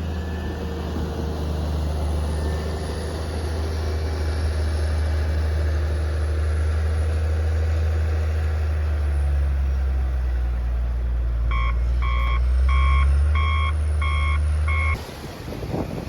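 Heavy snow-clearing vehicle's engine running with a deep rumble, growing louder a little past the middle. Near the end its reversing alarm sounds six beeps, a bit under two a second, as it backs up.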